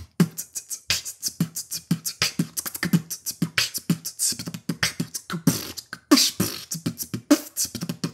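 A man beatboxing: vocal percussion with low kick-drum thumps about twice a second and fast clicks and hissy hi-hat and snare strokes between them, in a steady groove.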